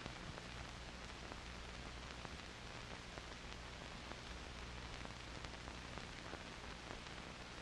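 Steady hiss with faint scattered crackles and a low hum underneath: the surface noise of an old film soundtrack.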